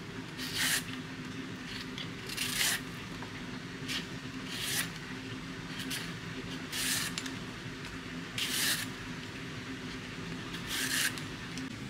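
A vegetable peeler scraping strips of skin off a courgette, six short strokes about two seconds apart, over a low steady hum.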